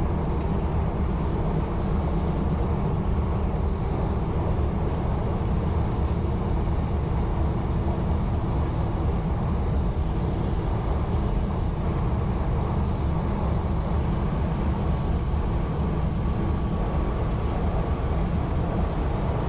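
1920s CPH rail motor running steadily between stations: its engine and wheels on the rails make a continuous low noise.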